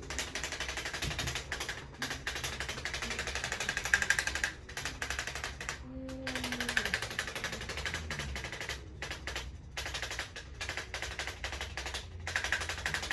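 Rapid machine-like tapping, a fast rattle of small strikes that stops and restarts in brief breaks every second or two.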